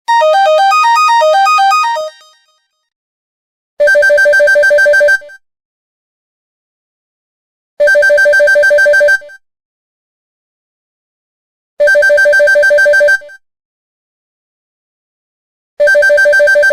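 LG MG220 mobile phone ringtones: a quick two-second melodic phrase of electronic notes, then an electronic ring that pulses rapidly in bursts about a second and a half long, repeating every four seconds.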